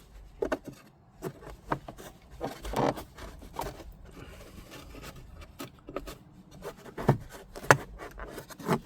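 Plastic interior trim panel of a Mercedes C-Class W204 being prised off and handled: scattered clicks and knocks, a rubbing scrape about three seconds in, and a few sharp clicks near the end.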